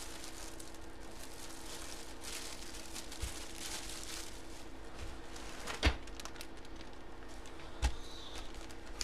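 Hands handling a plastic bag and packaging on a table: quiet rustles and three soft knocks, the loudest about six seconds in, over a steady low hum.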